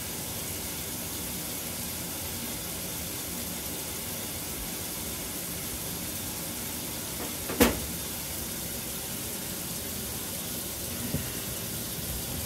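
KitchenAid Superba KAWS850LT1 top-load washer filling its tub: a steady hiss of water running in. A single sharp knock about seven and a half seconds in.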